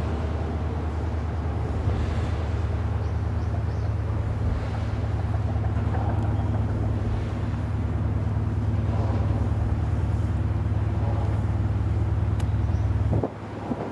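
Steady low rumble of passing ships' engines and wash across open water, dropping away sharply near the end.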